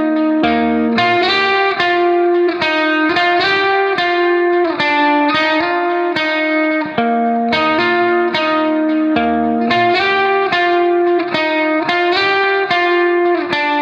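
Background music: guitar notes picked in a steady, repeating pattern with an effects-processed tone.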